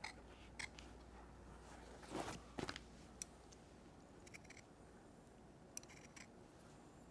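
Shears snipping through soft suede-like leather along a curved line: faint, scattered snips, some in short clusters.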